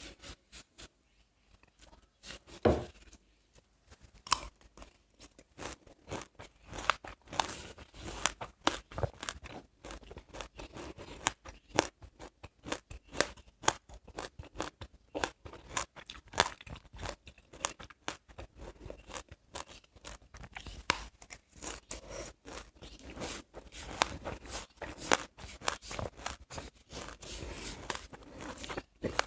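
Close-miked chewing of seeds: a dense run of small, crisp crunches and crackles, sparse at first with one louder bite about three seconds in, then nearly continuous.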